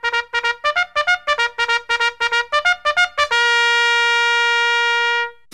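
Intro music: a fast run of short, detached notes, about six a second, then one long held note that stops shortly before the end.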